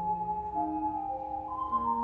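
Piano accompaniment playing a slow passage of several held notes at once, with the notes changing about every half second and no singing.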